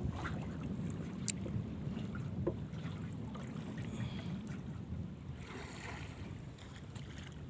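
Small fishing boat under way on open sea: a steady low rumble of the boat and water passing the hull, with a few faint ticks.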